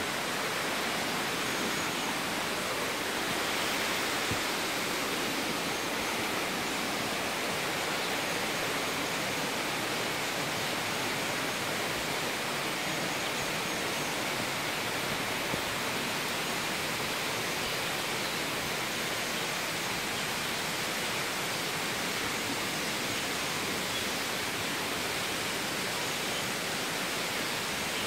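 Steady rushing of a waterfall, an even roar of falling water that holds level throughout.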